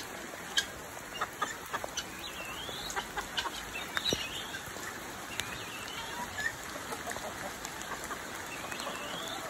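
Heavy rain falling steadily, with scattered drops tapping on nearby surfaces, and chickens calling now and then.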